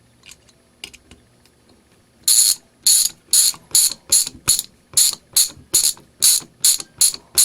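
Vintage Radio Shack (believed Archer) ratcheting screwdriver driving a screw: a few faint handling clicks, then from about two seconds in a steady rhythm of fine-toothed ratchet clicking, one quick run of clicks on each back-stroke, about two strokes a second.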